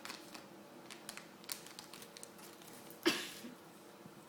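Light clicks and rustles of hand-rolling a cigarette: fingers working the tobacco, rolling paper and pouch, with one louder crinkle about three seconds in.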